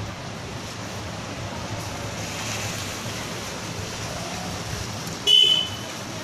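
A vehicle horn honks once, briefly and loudly, near the end, over a steady background of low traffic noise.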